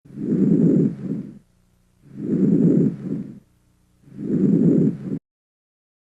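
Normal vesicular breath sounds heard through a stethoscope: a soft, low-pitched rustle that swells with each breath, three times about two seconds apart, with silence between.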